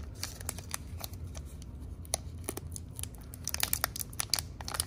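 Foil trading-card booster pack being torn open by hand, the wrapper crinkling and crackling, with a quick run of crackles near the end.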